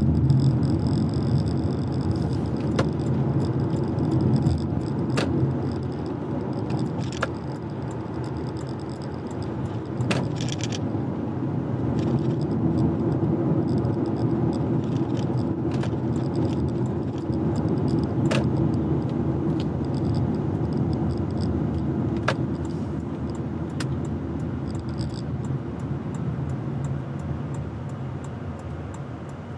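A car driving on a road: steady tyre and engine noise, with sharp clicks coming every few seconds at uneven intervals.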